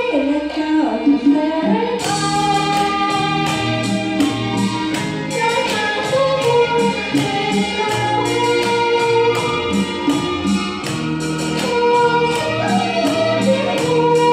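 A woman singing a Khmer song into a microphone over a karaoke backing track; the track's steady beat comes in about two seconds in.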